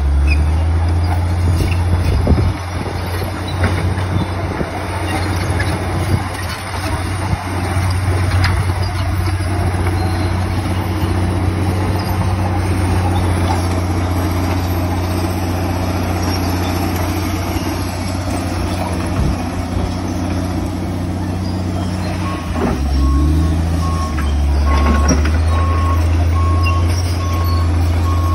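Komatsu D65PX crawler bulldozer's diesel engine running under load as it pushes soil and brush, a steady low drone. Near the end the engine note dips and climbs again, and a reversing alarm starts beeping steadily, the sign of the dozer backing up.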